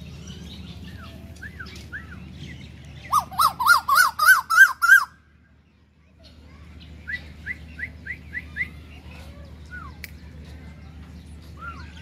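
Asian koel calling: a burst of about eight loud notes, each rising then falling in pitch, starting about three seconds in and stopping abruptly two seconds later. A quieter run of about six short, higher notes follows in the middle, over scattered chirps of smaller birds.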